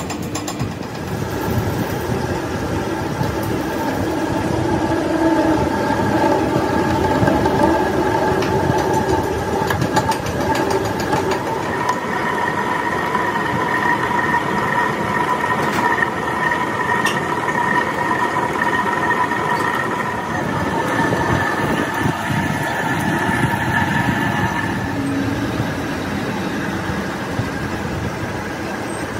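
A machine running steadily, with a whine that stands out from about twelve seconds in and fades out a few seconds before the end.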